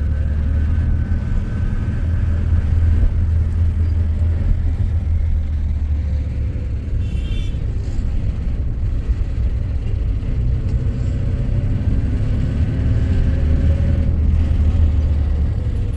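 A car driving, with a steady low rumble of engine and road noise. A brief high-pitched tone sounds about seven seconds in.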